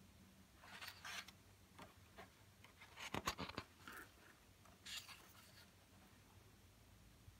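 Pages of a coloring book being turned by hand: soft paper rustles and brushes about a second in, a cluster of them around three seconds, and one more near five seconds.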